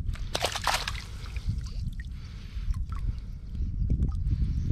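Water splashing and trickling as a gill net is handled in the water and fish are worked free, with a few short splashes, the strongest about half a second in, over a steady low rumble.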